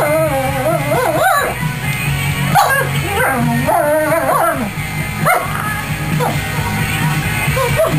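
Wolfdog whining and yowling in long rising-and-falling wails, broken by a few short sharp yips, as she warns another dog off a food container. A rock song plays under it.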